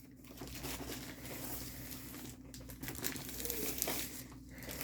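Plastic packaging crinkling and rustling, irregular crackles, as a diamond painting kit's contents are handled and unwrapped.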